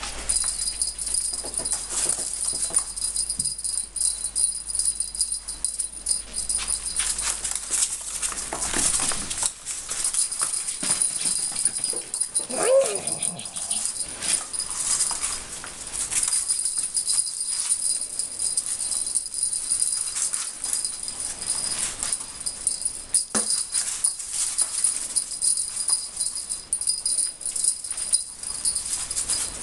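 A pet ferret playing with a feather wand toy: many short clicks and rattles from the toy and its scrambling, with a brief wavering animal sound about midway, over a steady high-pitched tone.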